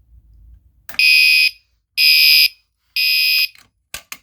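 Gentex Commander 3 fire alarm horn on its normal horn tone, sounding three loud, short blasts about a second apart: the temporal code 3 evacuation pattern, set off by key-activating the pull station. A few sharp clicks follow near the end.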